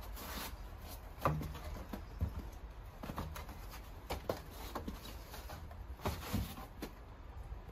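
Scattered knocks and bumps of a wooden stud wall frame being shifted and set into a wall opening, the loudest about a second in.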